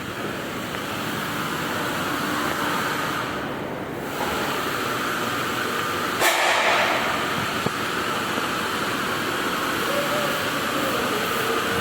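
Steady running noise of a vehicle, with a short, louder hiss about six seconds in.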